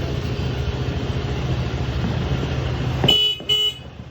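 A steady low rumble of a running vehicle and traffic, cut by two short horn toots about three seconds in.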